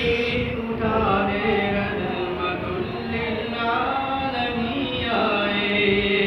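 A man chanting a naat, a devotional Urdu poem in praise of the Prophet, slowly and melodically with long held notes.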